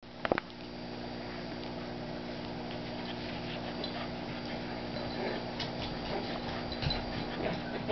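A Chihuahua puppy and a blue heeler playing rough: scattered light claw clicks and scuffling. These sit over a steady low hum, with a sharp double click right at the start.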